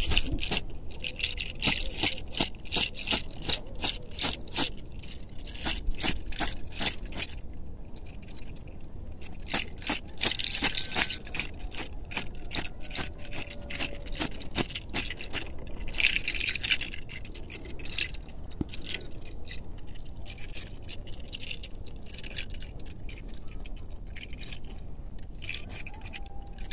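Bundle of fresh leafy herbs rustling and slapping as it is swept and patted over a person's back, shoulders and hair. Many quick leafy swishes and taps come in irregular runs, with a short lull partway through.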